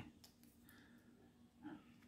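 Near silence: room tone, with a faint brief sound near the end.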